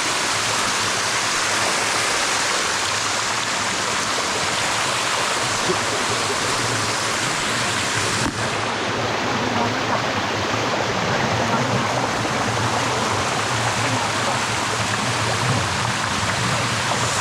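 Water of the Sticky Waterfall rushing and splashing over its rock steps close by, a steady, loud rush with no let-up.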